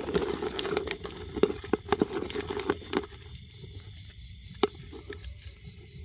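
Rustling and crackling of plant material being handled, with many sharp clicks, quietening to a few scattered clicks about halfway through.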